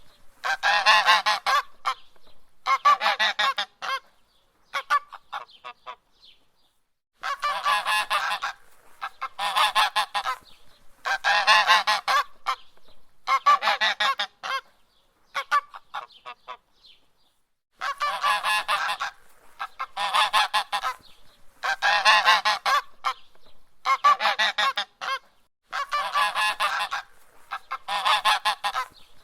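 Goose honking in repeated bursts of calls, each about a second long and coming roughly every two seconds, with two brief lulls of a few seconds.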